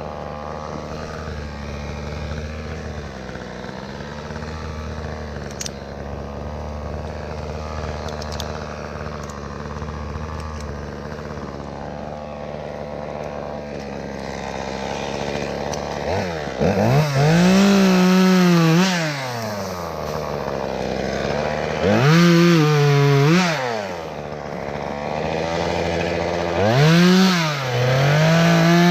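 Chainsaw cutting willow limbs: a steady low engine hum for the first half, then the saw revved up to full speed three times, in runs of one to two seconds each, pitch rising at each start and dropping back after.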